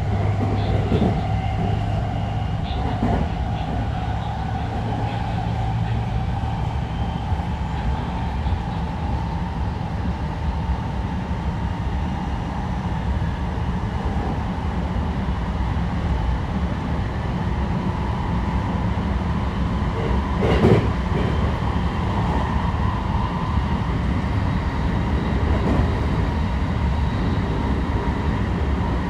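JR West 223 series electric train with Hitachi IGBT-VVVF control running between stations: a steady low rumble with a thin, steady whine. There are a few short knocks from the wheels, the loudest about twenty seconds in.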